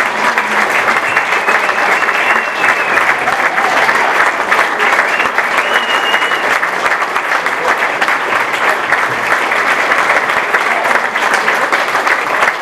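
A crowd applauding loudly and steadily.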